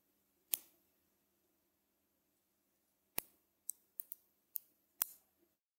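Small neodymium magnet balls snapping together between the fingers, making sharp clicks. One click comes about half a second in, then a quicker run of about six follows in the last two and a half seconds.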